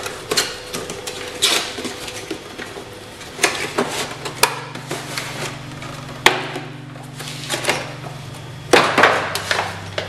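Cardboard box and clear plastic clamshell packaging of a door lever set being opened and handled: rustling, crinkling and tapping, with two sharp plastic clicks in the middle and a denser crackle near the end.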